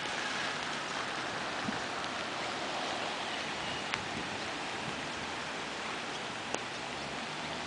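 Steady rain falling on floodwater, an even hiss with three sharp ticks spread through it.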